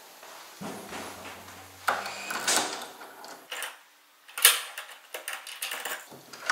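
A key worked in a metal apartment door's lock and the lever handle turned, with a series of metallic clicks and scrapes; the loudest click comes about four and a half seconds in.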